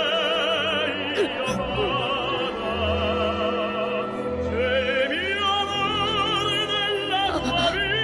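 Operatic singing in long held notes with a strong, wide vibrato, over a low sustained accompaniment; the voice pauses briefly about four seconds in, then comes back.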